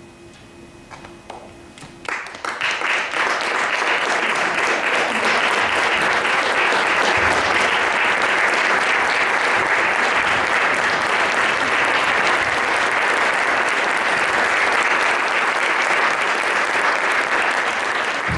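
Theatre audience breaking into applause about two seconds in, after a quiet pause, then clapping steadily.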